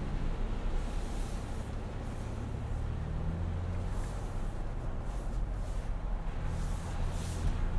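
Ford Bronco's 2.7-litre EcoBoost V6 running while driving off-road, heard from inside the cabin: a low engine hum that swells a little a few times, with a couple of brief hissing swishes.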